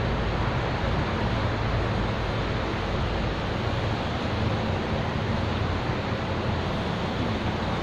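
Steady rushing noise, an even hiss with a low rumble underneath.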